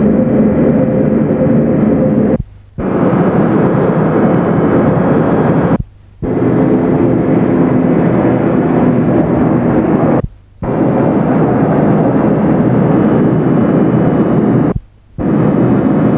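Fishing trawler's diesel engine running with a steady drone, broken by four short dropouts where the recording stops and restarts.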